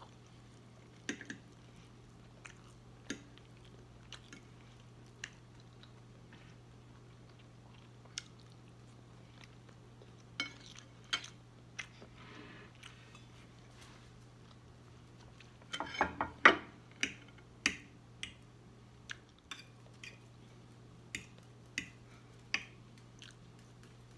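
Close-up eating sounds: chewing and mouth smacking, with scattered sharp clicks of a metal fork against the plate, a quick flurry of louder ones about two thirds of the way in. A faint steady low hum runs underneath.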